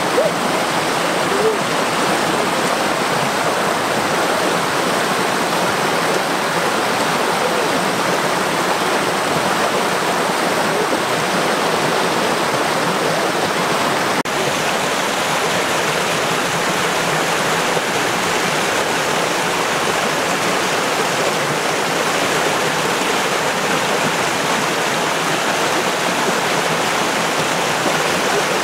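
Steady rush of running water, unbroken apart from a brief dip about halfway through.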